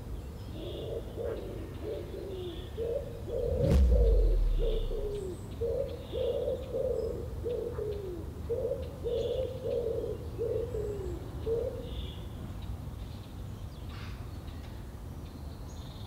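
A pigeon cooing in repeated phrases of low notes, with small birds chirping faintly behind it. About four seconds in, a dull low thump with a short rumble is the loudest sound.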